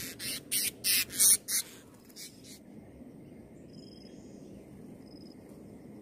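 Blue-crowned hanging parrot (serindit) giving a run of short, harsh screeches, about five in the first second and a half, followed by a few faint, thin high calls.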